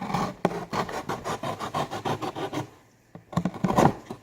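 A blade sawing through a cardboard box with rapid back-and-forth scraping strokes, about seven a second. The strokes pause briefly near three seconds in, then come back louder for a short final burst.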